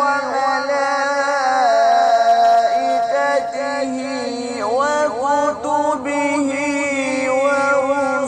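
A male qari's voice in melodic Quran recitation (tajwid), holding long drawn-out notes and ornamenting them with rising and falling pitch turns.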